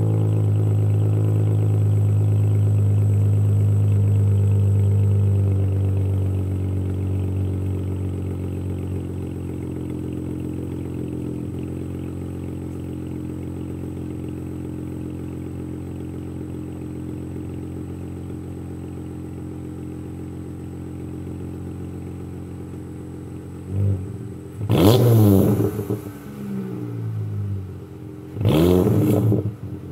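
Dodge Challenger exhaust through an X-pipe, Pypes Violator mid muffler and straight pipes to black dual tips, idling with a deep tone; the idle is higher for the first few seconds, then drops and settles lower. In the last six seconds the throttle is blipped three times, each rev rising sharply and falling back to idle.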